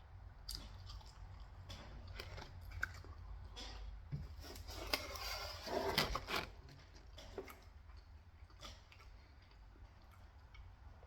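Close-up mouth sounds of someone biting and chewing pizza: moist chewing with crisp crackles, busiest and loudest about halfway through.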